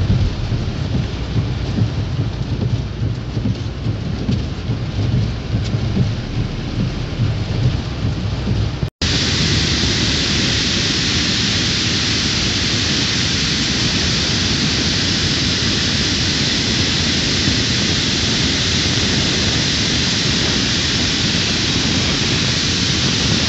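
Heavy rain on a car's windscreen heard from inside the car, with a low rumble under it. About nine seconds in, it cuts suddenly to the steady rush of a torrent of muddy floodwater pouring down a wall.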